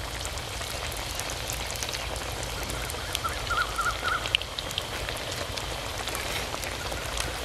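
Potato pakoras deep-frying in hot oil in a steel karahi: a steady sizzle with constant fine crackling, on a fairly high flame for their second fry.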